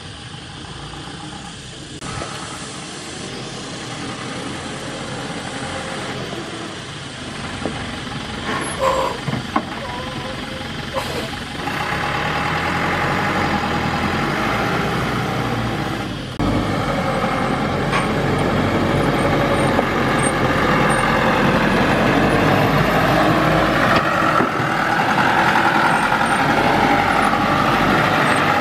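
Thaco Forland dump truck's diesel engine running as the loaded truck drives up a dirt track, getting steadily louder as it approaches.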